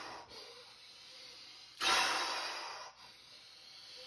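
A man breathing forcefully during a Kundalini yoga breathing exercise. One strong exhale starts sharply just before two seconds in and fades over about a second, with the tail of the previous exhale at the start and quieter inhaling between.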